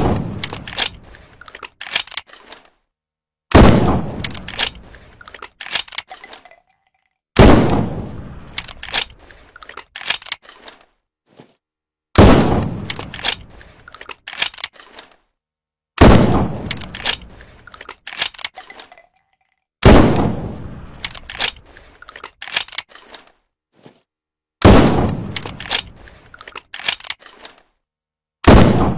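Homemade single-shot shotgun sound effect played over and over: one sharp bang with a fading tail, then a few small clicks, repeating about every four seconds, seven times.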